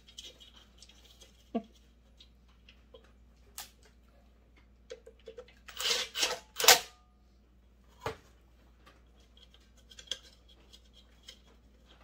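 Hand tools clicking and clinking against the metal of a cut-off saw as a bolt is worked by hand. The loudest part is a quick run of metal clanks about six seconds in, the last one ringing briefly, with another knock about two seconds later.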